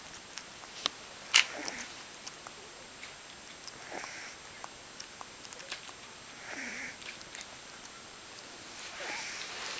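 A litter of sleeping puppies making soft whimpers and snuffles every couple of seconds. There are scattered small clicks, with one sharper click about a second and a half in.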